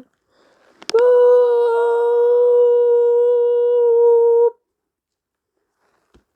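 One steady hummed note, held for about three and a half seconds after a click about a second in, then cut off abruptly: a vocal imitation of an Emergency Alert System attention tone.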